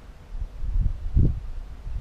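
Wind buffeting the microphone in irregular low gusts, the loudest about a second in.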